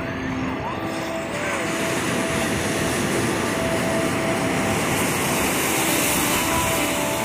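Ocean surf washing over rocks and up a sandy beach: a steady rush of water that builds, with a wave breaking and foaming up the sand about five seconds in.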